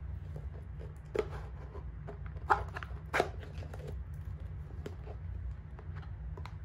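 Cardboard jewellery boxes and paper being handled: a few sharp taps and rustles, the loudest about a second in and around two and a half to three seconds in, with lighter ticks later, over a steady low hum.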